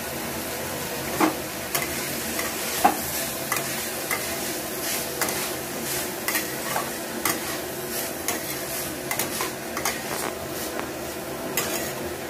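Shredded carrots and green beans sizzling in a nonstick wok, a steady frying hiss, while a metal spatula stirs them, scraping and clacking against the pan a few times a second at an uneven pace.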